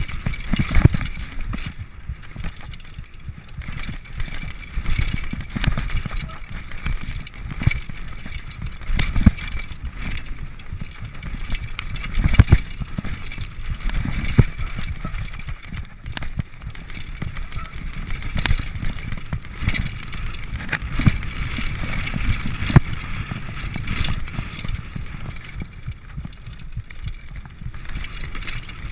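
Mountain bike running fast down a dirt forest trail: a steady rumble of tyres and wind on the microphone, with frequent sharp knocks and clatters as the bike hits bumps and lands, the loudest about 12 and 23 seconds in.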